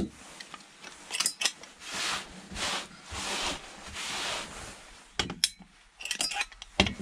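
Gloved hands handling scrap parts on a wooden workbench: a few sharp clicks and clinks about a second in and again near the end, with several short rubbing, scraping sounds in between.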